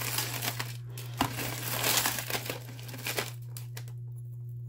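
Crinkling and rustling of packaging as the next pieces of jewelry are taken out, with a sharp tap about a second in. The rustling fades about three seconds in, leaving a steady low hum.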